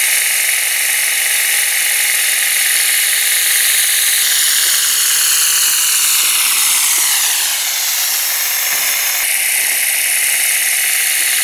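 Compressed-air Tesla turbine spinning a propeller at speed: a loud, steady rush of air hiss with a high turbine whine, the whine sliding down in pitch about halfway through.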